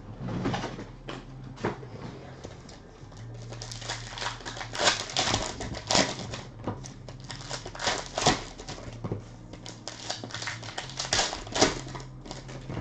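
Trading card packs and their packaging being torn open and handled: irregular crinkling and sharp clicks, a few louder snaps among them.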